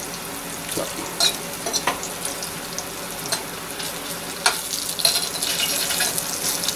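Cornmeal-coated smelt frying in hot oil in a stainless steel pan, a steady sizzle. A fork clicks and scrapes against the pan several times as the fish are turned.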